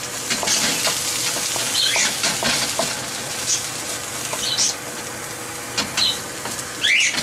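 Frozen vegetables sizzling in hot oil in a frying pan with chicken and onions, while a utensil stirs and knocks against the pan in short clicks.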